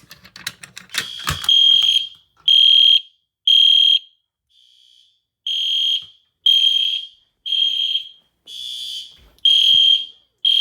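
Kidde 278B fire alarm pull station clicking and rattling as it is pulled, then the system's horn strobes sounding a high beep about once a second.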